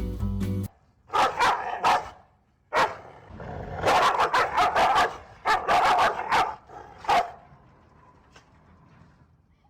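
An animal barking in quick runs of short calls that come in clusters, dying away about seven seconds in.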